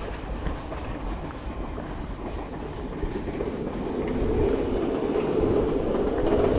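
A train running on rails with a clattering wheel rumble, growing steadily louder as it approaches.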